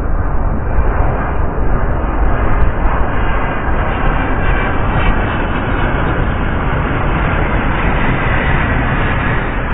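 Boeing 737-800's CFM56-7B jet engines passing low overhead on approach to land: a loud, steady jet noise with a deep rumble.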